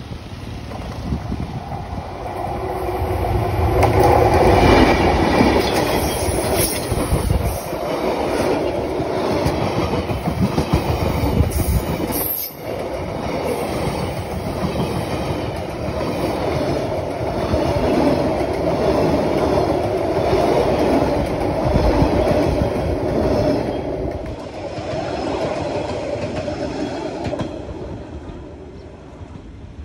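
Passenger train hauled by a D19E diesel-electric locomotive passing at close range, loudest about four seconds in. Coach wheels rumble and clatter on the rails with a steady squeal, then fade near the end as the last coach moves away.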